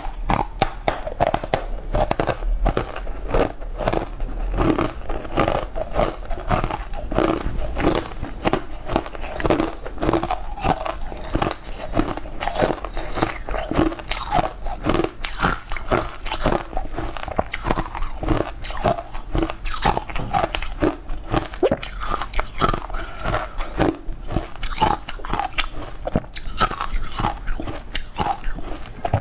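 Close-miked biting and chewing of a crumbly green food, a dense run of quick crunches and crackles, several a second, going on steadily.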